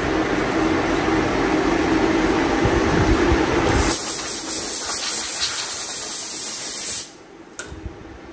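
A steady rushing noise, then about four seconds in a compressed-air blow gun hisses loudly for about three seconds, blasting aluminium chips and coolant off the vise and fixture inside a CNC milling machine. The hiss cuts off sharply, and a click or two follows.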